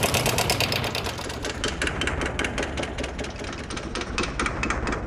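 Honda Karisma 125's single-cylinder four-stroke engine running with a rapid, even knocking clatter: a rough, diesel-like sound that points to a mechanical fault inside the engine.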